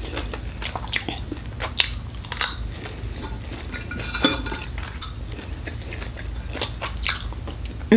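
Metal spoon and fork scraping and clinking on a ceramic plate, gathering the last scraps of fried noodles, with chewing between the scrapes.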